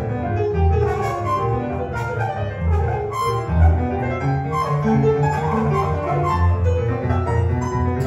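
Live electronic synthesizer music played on the Kaossitar, a homemade guitar-shaped synth instrument: a strong low bass line under sustained melodic notes.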